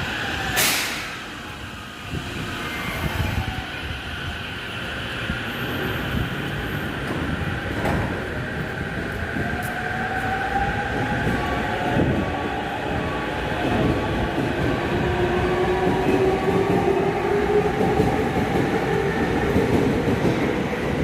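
Sobu Line electric commuter train accelerating away from a station platform: its traction motor whine rises steadily in pitch over the rail noise, growing louder toward the end. A short, sharp noise comes about half a second in.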